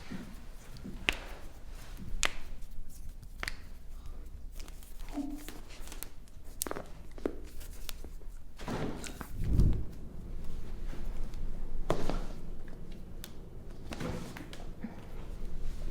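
Hands handling and manipulating a bare foot on a treatment table. Several sharp clicks are scattered through it, with a couple of dull thumps.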